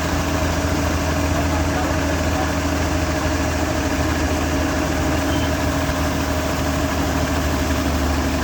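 Combine harvester's diesel engine running steadily with a deep, even hum.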